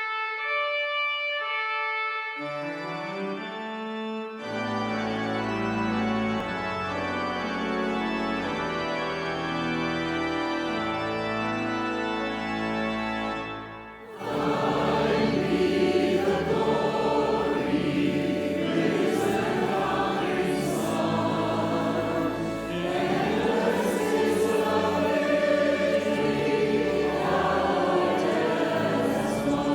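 Organ playing held chords, then about halfway through it breaks off abruptly and a choir comes in singing.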